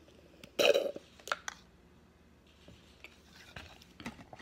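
Drinking through a straw from a plastic cup: one short, loud mouth sound about half a second in, then two light clicks shortly after.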